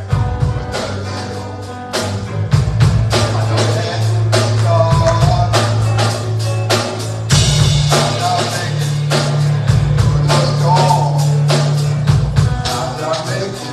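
Gospel band playing a song with drum kit, held low bass notes and guitar, with a voice singing at times.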